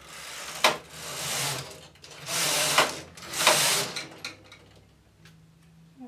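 Knitting machine carriage being pushed back and forth across the needle bed to knit rows: a rasping, clattering slide with sharp clicks. It comes in three loud sweeps over the first four seconds, then dies away.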